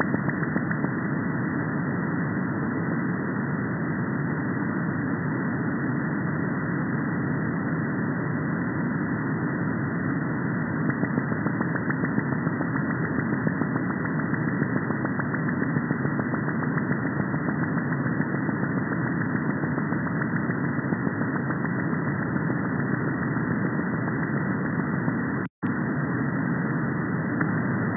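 Airspy R2 software-defined radio's upper-sideband audio: steady radio static hiss cut off above about 2 kHz by the receiver's 2 kHz filter. It drops out completely for a moment near the end.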